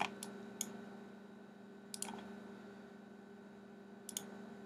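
Computer mouse buttons clicking: three quick clicks at the start, one about two seconds in, and a double click near the end, over a steady low hum.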